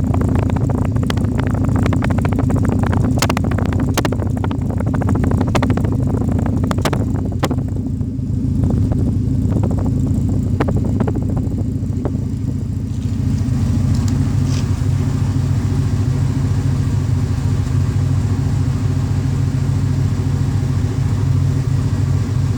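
Exhaust of a 1992 Alfa Romeo Spider's 2.0-litre twin-cam four-cylinder with Motronic injection, running steadily. Scattered sharp ticks sound over it in the first eight seconds or so, and it runs smoother from about halfway on.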